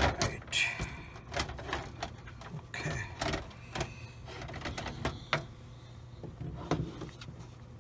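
Irregular plastic clicks and knocks of modular cables being handled and plugged into a Corsair RM850X power supply.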